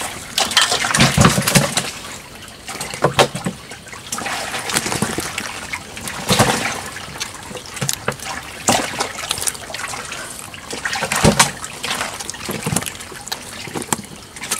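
Water splashing and trickling, broken by irregular sharp splashes and knocks, as the catch is handled in water.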